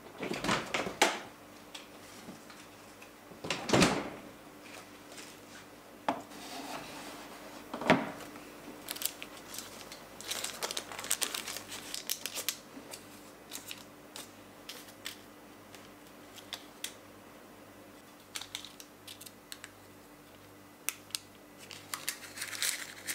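Four sharp knocks in the first eight seconds, then crinkling and rustling of parchment cooking sheet as a stainless steel trough mold is lifted off a set chocolate mousse on a wooden board.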